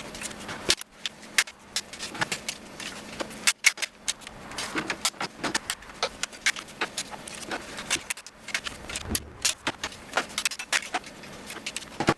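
Hard drives and plastic NAS drive trays being handled: a string of irregular sharp clicks and clacks as drives are fitted into trays and slid into the bays, over a faint steady hum.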